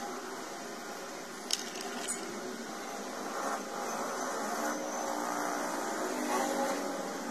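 Steady background hiss of room noise, with two light clicks about one and a half and two seconds in.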